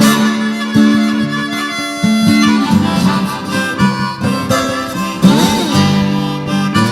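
Background music of harmonica with acoustic guitar accompaniment, with a bending harmonica note about five seconds in.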